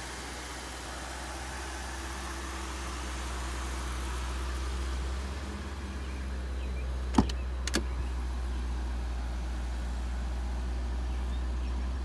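1997 Ford Thunderbird idling steadily. About seven seconds in, two sharp clicks about half a second apart, as its driver's door is unlatched and opened.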